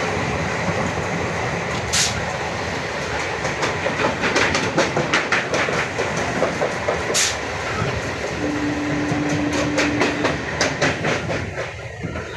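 Train running on the rails: a steady rumble with runs of sharp clicks and clacks from the wheels over rail joints, easing off near the end. A faint steady tone sounds for about two seconds past the middle.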